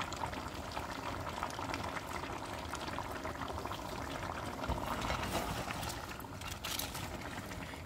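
Meat and vegetables simmering and sizzling in their own juices in an aluminium kazan under a heap of raw cabbage leaves, a steady bubbling hiss. About five seconds in, the cabbage leaves rustle and crunch as they are turned over in the pot.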